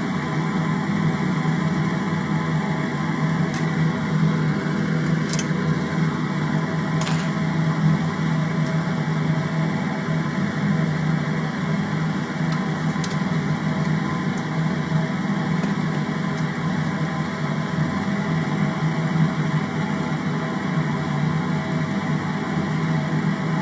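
Steady whir of a small fan running without change, with a few faint clicks.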